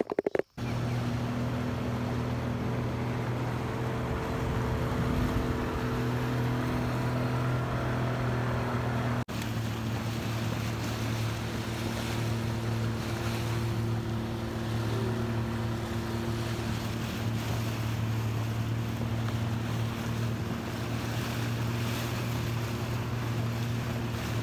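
Motorboat engine running at a steady drone as the boat cruises over calm water.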